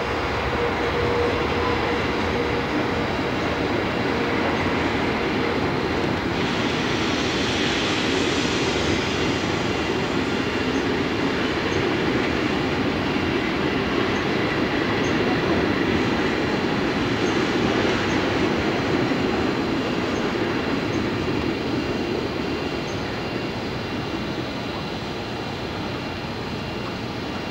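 Steam locomotive moving slowly along the track, heard as a steady noise of its exhaust and running gear.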